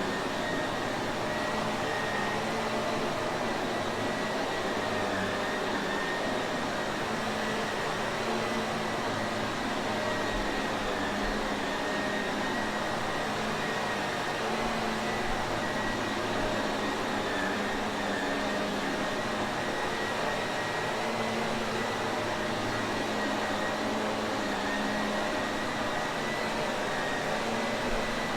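Shark Navigator upright vacuum cleaner running steadily: a constant motor whine and rush of air with a faint high hum, no change in pitch or level.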